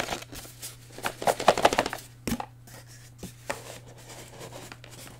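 Cardboard scraping and rattling as a sealed box of cards is worked out of a snug cardboard case box. A quick run of rapid scrapes comes about one to two seconds in, then a single knock, then a few light taps.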